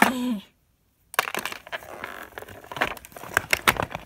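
Packaging crackling and clicking in quick, irregular snaps as a Breyer model horse is worked out of its box. The sound breaks off for a moment of dead silence about half a second in.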